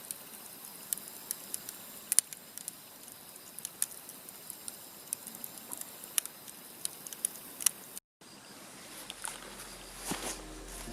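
Wood fire crackling in a fire pit: irregular sharp pops and snaps, one to three a second, over a low hiss.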